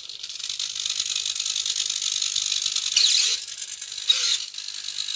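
Micro servos of an ImmersionRC EZAntenna tracker's pan-and-tilt mount running an automatic servo test, sweeping the antenna through its travel with a steady high-pitched mechanical whir, louder briefly about three seconds and four seconds in.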